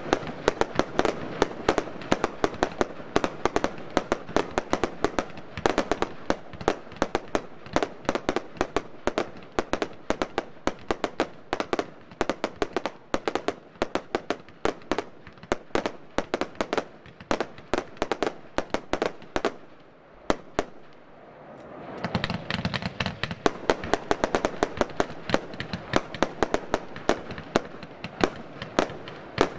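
F2 compound firework battery firing 30 mm bombettes: a dense run of launch thumps and bursting bangs, several a second. The firing thins to a short lull about twenty seconds in, then picks up again.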